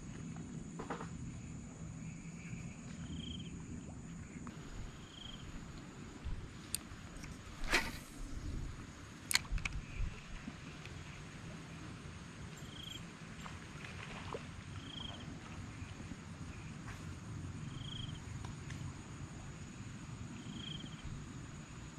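Faint outdoor insect and wildlife sound: a steady high drone with a short high call repeating every two seconds or so. A few sharp clicks and a brief swish break in near the middle.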